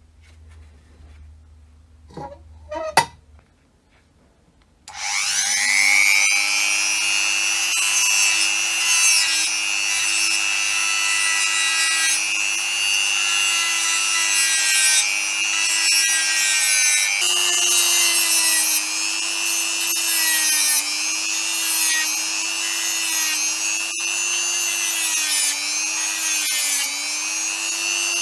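Two knocks, then an electric power tool starts with a rising whine and runs steadily, its pitch dipping and wavering now and then as it is loaded.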